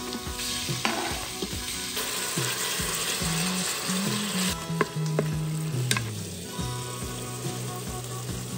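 Diced raw chicken sizzling in hot oil in an electric pressure cooker's stainless steel inner pot as it is seared, with a spatula clicking and scraping as it stirs the pieces. The sizzle is loudest just after the chicken goes in and drops off about halfway through.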